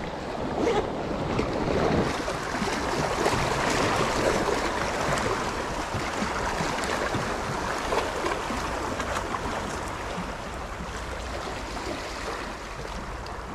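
Sea waves washing against shore rocks: a steady rushing surf that eases slightly toward the end.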